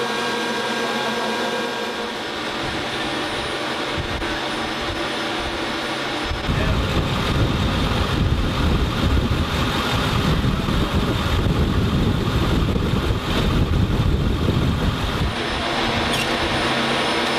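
Turboprop aircraft engine noise: a steady droning hum with several fixed tones, then from about six seconds in a louder, rougher rumble that lasts about nine seconds before the steady drone returns.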